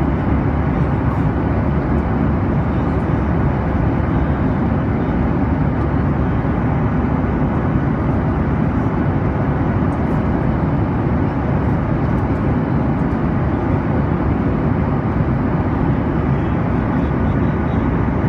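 Steady cabin noise of a passenger airplane in flight: engine and airflow heard from inside the cabin, an even low rushing sound that does not change.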